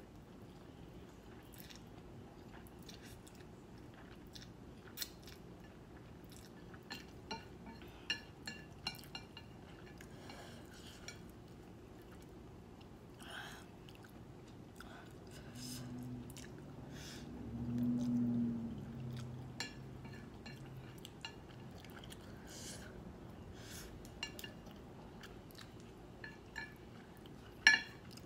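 Close-mic chewing and slurping of instant noodles, with scattered small wet clicks of mouth and chopsticks. There is a short low hum a little past the middle, and a sharp click near the end, the loudest sound.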